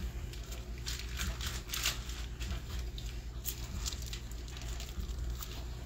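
Plastic packaging of a raw pork loin crinkling and rustling in irregular short bursts as gloved hands pull the meat out of it, over a steady low hum.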